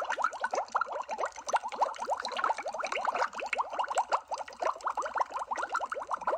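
Water bubbling: a dense, continuous stream of bubbles, each a short blip rising in pitch, many a second and overlapping.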